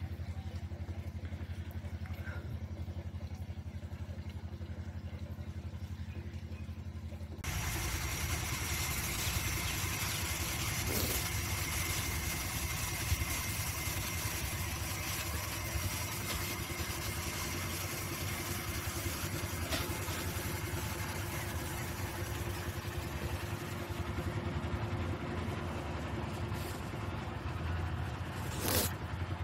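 An engine running steadily: a low even hum for about the first seven seconds, then, after a sudden change, a louder and noisier engine sound that holds steady. A brief sharp sound comes near the end.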